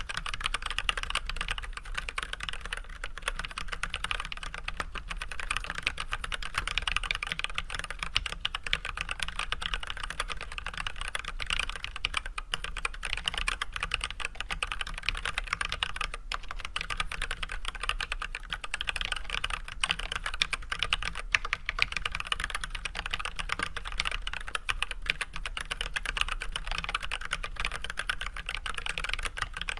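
Steady, continuous typing at a normal pace on an Archon AK87 hot-swap mechanical keyboard fitted with unlubricated Everglide Red 67g linear switches with switch films and Leopold white PBT keycaps: a dense, even stream of key clacks.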